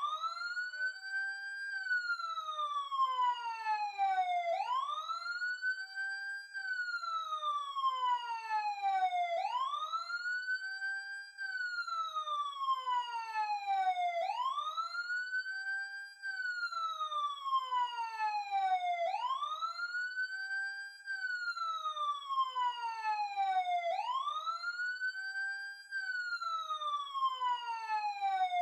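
Ambulance siren sounding a steady wail: each cycle the pitch sweeps up quickly, then falls slowly over about three seconds, repeating roughly every five seconds, about six times.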